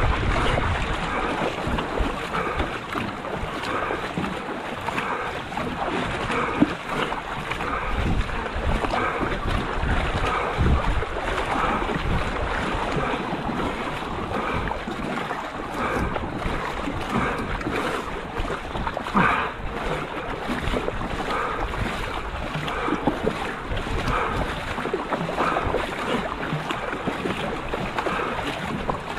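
Paddle strokes of a marathon racing canoe splashing at a steady rhythm, with water rushing along the hull and wind buffeting the microphone.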